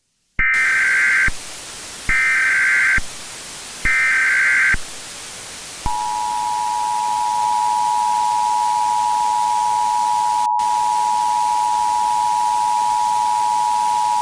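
Emergency Alert System broadcast tones: three short bursts of screeching SAME header data tones, about a second each, then the two-tone attention signal (853 and 960 Hz) held steady for about eight seconds, over a constant hiss of static.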